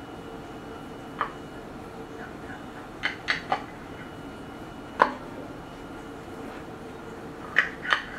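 Large kitchen knife cutting through a baked pot pie crust, with about seven sharp clicks and taps as the blade meets the crust and the pie dish. The loudest comes about five seconds in, and two quick ones near the end.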